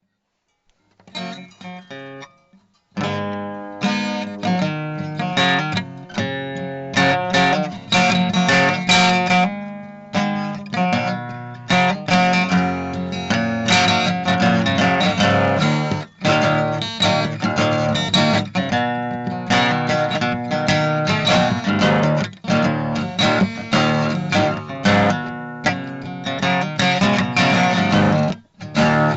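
Acoustic guitar music, strummed and picked, starting about a second in with a brief pause before settling into steady playing.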